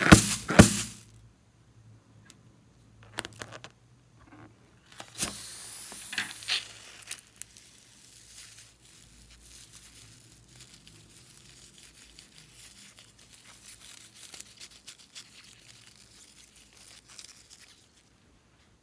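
Hand-handling noises of slime-making materials: loud tearing and crinkling in the first second, a few clicks, another tearing stretch a few seconds in, then faint crackling that fades out near the end.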